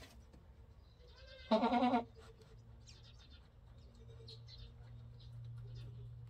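Boer goat doe in labour bleating once, a short wavering bleat about a second and a half in.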